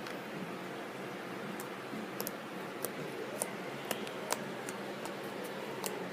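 Fluffy slime being poked with fingers, giving small irregular sticky pops and clicks that start about a second and a half in and come more often toward the end, over a steady hiss.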